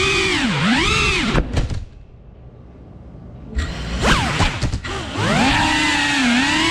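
3.5-inch cinewhoop drone's motors and propellers whining, the pitch rising and falling with the throttle. Near the middle the whine nearly drops away for about a second and a half, then spins back up with a sharp rising whine and a few sharp clicks.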